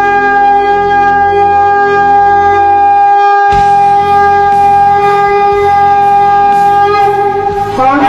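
A long, loud horn blast held on one steady note over a low drone. At about three and a half seconds a crash and hiss join it, and near the end the pitch slides up into a new note.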